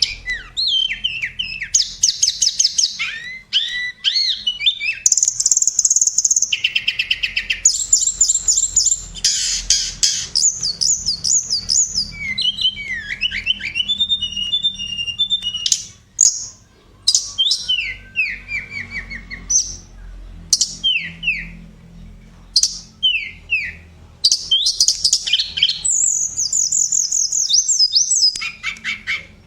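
Tledekan (Cyornis blue flycatcher) singing a varied song: phrases of rapid high chirps and trills mixed with quick descending whistled notes, with short breaks between phrases.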